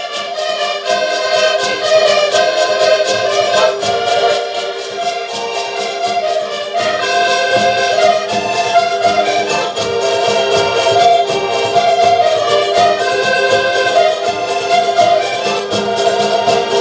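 Several accordions playing a lively Portuguese folk tune together in full chords, over a steady percussion beat.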